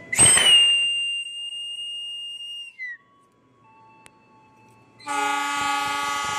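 Conductor's whistle blown in one long blast of nearly three seconds, sagging in pitch as it stops: the departure signal to the train driver. About five seconds in the locomotive's horn answers with a steady blast, acknowledging the signal.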